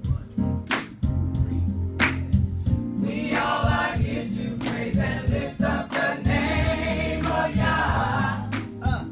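Gospel-style worship music: a choir singing over a steady instrumental accompaniment with a regular beat. The voices come in about three seconds in.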